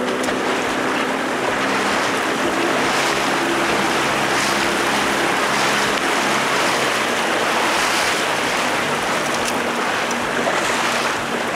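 Outboard motor running steadily as the boat trolls at about 4.5 to 5 mph, under a loud, even rush of water and wind past the boat.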